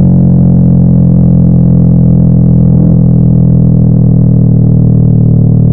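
Yamaha YZF-R3's parallel-twin engine through an aftermarket M4 exhaust, running loud at steady revs while the bike is ridden along.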